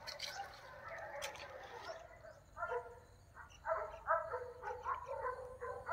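A dog barking repeatedly in short barks, starting about two and a half seconds in.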